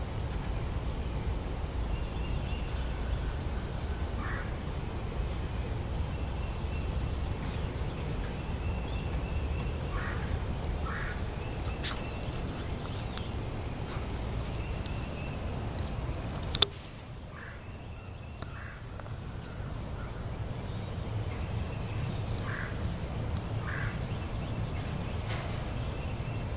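Deep, steady low rumble that drops away after a sharp click a little past halfway, then builds back. The recorder takes it for engine testing at a nearby military base, loud enough to shake the ground. Scattered short bird calls sound over it.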